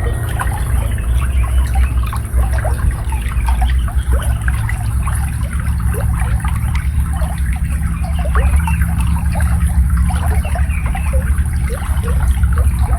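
Shallow water babbling and trickling as it flows through a rice field, a continuous run of small gurgles over a steady low rumble.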